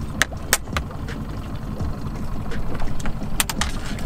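Boat's outboard motor running steadily at trolling speed, with a few sharp clicks over it, three in quick succession about three and a half seconds in.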